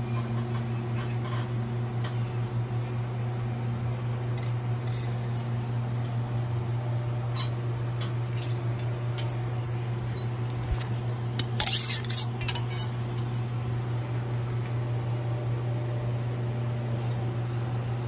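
Metal parts and tools clinking as they are handled on a steel optical table, with scattered light ticks and a louder burst of clinks a little before the middle. A steady low hum runs underneath.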